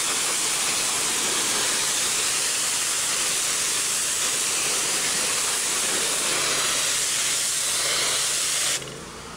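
Low-pressure, high-volume water jet from a cleaning wand spraying onto a flat roof surface, a steady loud hiss. Near the end the spray cuts off suddenly, leaving a quieter steady machine hum.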